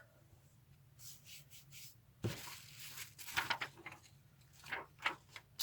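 Faint rustling and rubbing as a boxed eyeshadow palette and its packaging are handled, with one sharp click a little over two seconds in.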